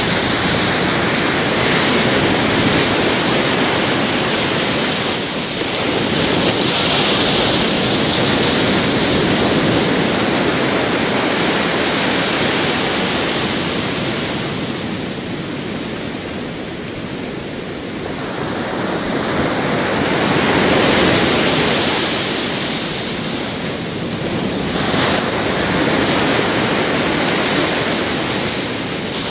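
Pacific surf breaking and washing up a beach, swelling and easing every several seconds. The wash dies down for a few seconds about halfway through, then builds again in two more surges.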